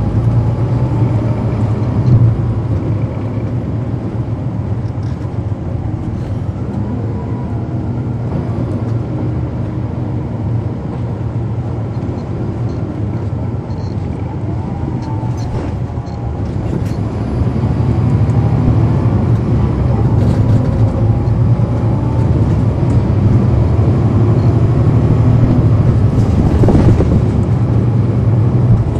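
Cummins ISL9 inline-six diesel and ZF Ecomat automatic transmission of a 2010 NABI 40-foot transit bus, heard from on board while the bus is driving. It runs softer for a stretch, then grows louder from about halfway as the engine works harder, with faint whines that slide up and down in pitch.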